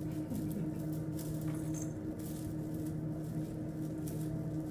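Kittens scrambling and pawing in a wicker basket on a cloth sheet: light, scattered rustles and scratches over a steady low hum.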